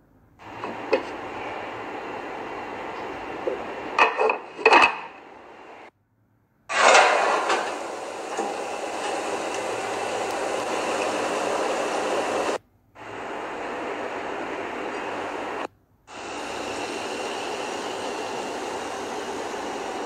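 Kitchen cooking sounds: a steady hiss of food cooking, with sharp clinks of a pot lid and pans about a second in and again around four to five seconds in, and a louder clatter near seven seconds. The sound drops out briefly a few times.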